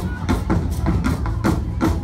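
Live percussion band playing an upbeat song: a steady beat of sharp drum and knocking strokes, about four a second, over a low bass.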